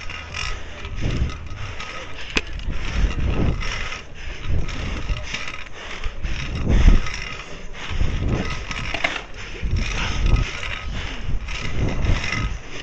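Trikke carving scooter's wheels rolling on the concrete of an empty pool bowl. The rolling noise swells and fades in surges every second or two as it carves back and forth.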